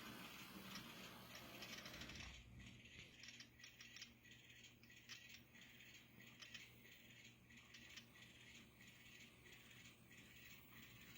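Near silence with faint, irregular clicking and rattling: small N-scale model railroad cars rolling over the rail joints and switches.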